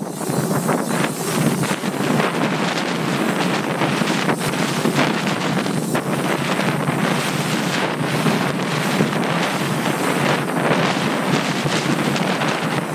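Wind buffeting the built-in microphone of a chest-mounted Rylo 360 camera while riding a bike round a pump track into a headwind: a loud, steady rushing with a gusty flutter.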